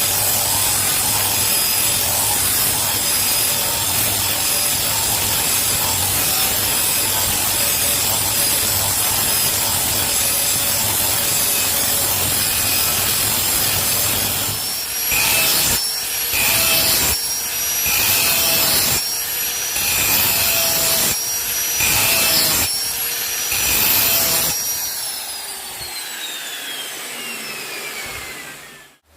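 Electric grinder working steel. It grinds steadily at first, then makes about eight short passes a little over a second apart. Near the end it is switched off and its whine falls away as the motor spins down.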